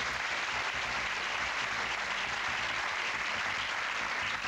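Studio audience applauding steadily after a correct answer.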